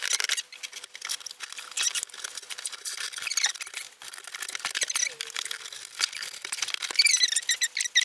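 Cardboard box being cut open and its flaps pulled back: a knife scraping through packing tape and cardboard, with rapid scratchy rustling and a few high squeaks as the flaps rub.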